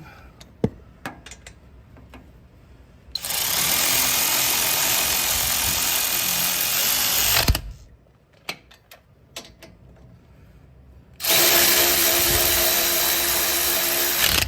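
Battery-powered power tool spinning a 17 mm socket to tighten the brake caliper bolts, run twice: a steady run of about four and a half seconds, then a second of about three seconds, with a few small clicks of socket and bolt handling between them.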